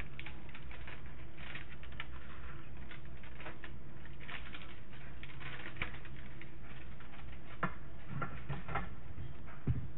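Dried thyme rustling as it is brushed off a plastic mesh dehydrator tray into a plastic bowl, a quick run of small crackles and clicks, with a few light knocks of the plastic trays and a louder knock near the end.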